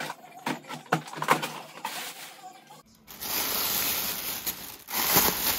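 A parcel being handled and opened. There are scattered clicks and rustles at first, then from about three seconds in a dense, steady rustling and crinkling of packaging.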